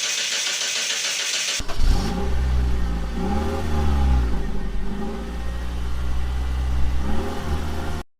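A steady hiss, then about a second and a half in a car engine comes in and is revved up and down several times. The sound cuts off abruptly near the end.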